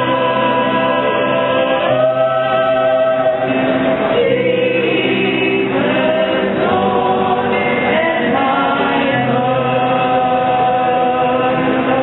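A choir singing a Christmas carol in slow, long-held notes.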